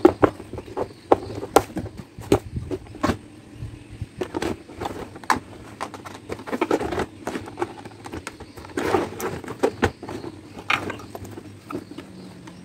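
Irregular clicks, knocks and rustling as a suitcase and its zipper are handled and worked during a zipper repair, with a couple of longer scraping rustles from the zipper and lining.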